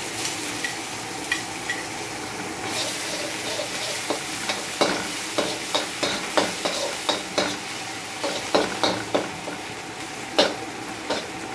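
Finely chopped onion sizzling in hot oil in a wok while a slotted metal spatula stirs it, with repeated scrapes and taps of the spatula against the pan, most of them from about four seconds in.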